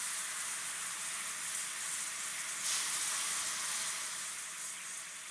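Boiled brown rice sizzling as it fries in hot oil in a frying pan while being stirred. The sizzle gets louder about two and a half seconds in, then slowly dies down.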